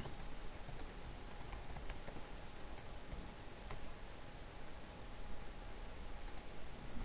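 Faint, scattered computer keyboard keystrokes over a steady background hiss.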